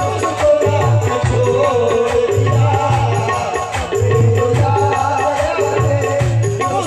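Live qawwali music: a harmonium melody over a steady hand-drum rhythm, with quick percussive strokes throughout.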